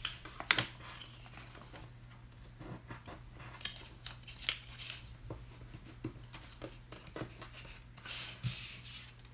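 Scored cardstock being folded and creased by hand: paper rustling and rubbing with scattered light taps and crinkles, and a longer rustle near the end.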